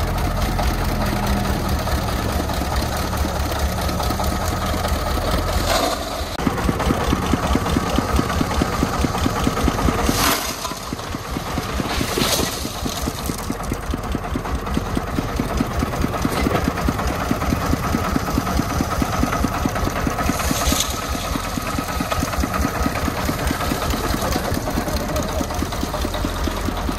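Single-cylinder diesel engine of a công nông (homemade three-wheeled truck) chugging steadily with rapid, even firing beats. A few brief sharp noises cut through it, about 6, 10, 12 and 21 seconds in.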